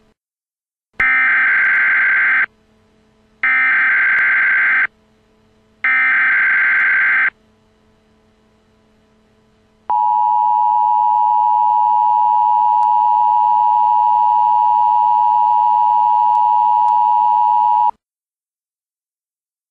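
Emergency Alert System opening tones: three identical SAME header data bursts of about a second and a half each, a second apart, then the steady two-tone EAS attention signal (853 and 960 Hz) held for about eight seconds and cut off sharply. Together they are the coded header and alert tone that open an emergency broadcast.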